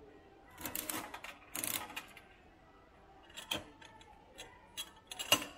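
A series of small clicks and rattles: two short rattling bursts in the first two seconds, then single sharp clicks, the loudest near the end.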